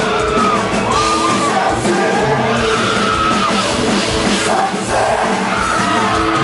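Loud music with voices singing and shouting over it, steady throughout.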